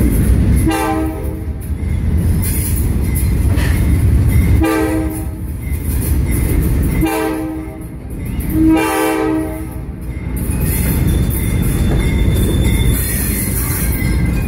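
Train horn sounding four blasts over a steady low rumble, the last two close together, in the grade-crossing pattern.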